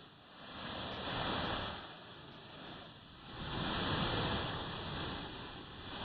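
Soft rushing noise swelling and fading every two to three seconds.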